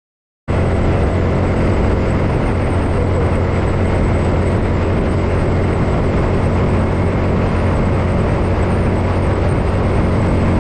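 Small motorcycle on the move: a steady engine drone with wind and road noise, cutting in suddenly about half a second in.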